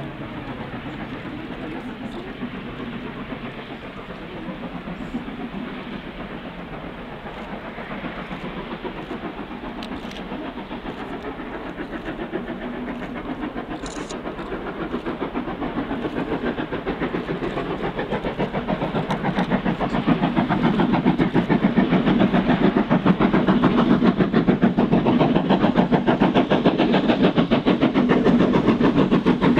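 Steam locomotive hauling a passenger train while working under steam, its exhaust beating fast and steadily. The beat grows louder as the engine approaches and is loudest over the last third, as it passes close by.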